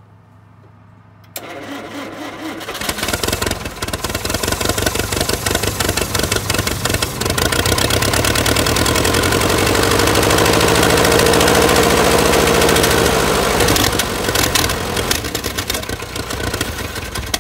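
The 1969 Allis-Chalmers forklift's gasoline engine suddenly cranks and fires about a second and a half in, then runs loudly and unevenly, its pitch rising and falling in the middle before dropping away near the end. It only wants to run at half choke, which the owner puts down to a probable carburettor issue.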